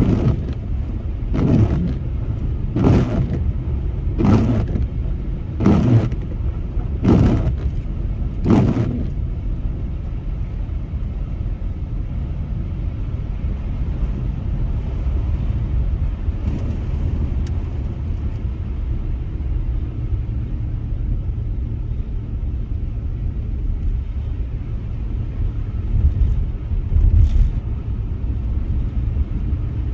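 Steady low road-and-engine rumble inside a car driving on a snow-covered road. For the first nine seconds a regular swish repeats about every one and a half seconds. Near the end there are a couple of louder swells.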